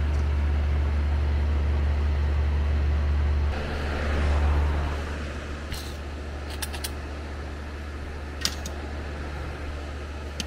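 Steady low mechanical hum that swells briefly about four seconds in, then drops to a lower level. A few light clicks come about six and eight seconds in.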